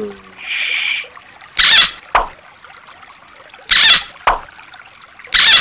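Short, loud splashy water sounds, three times about two seconds apart, each followed by a brief low knock.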